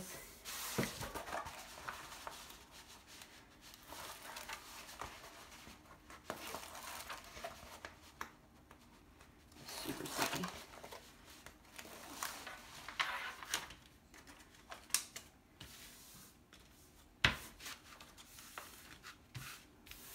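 Plastic wrapping and a rolled diamond-painting canvas crinkling and rustling in irregular spells as they are unwrapped by hand and smoothed flat on a wooden table, with one sharp knock near the end.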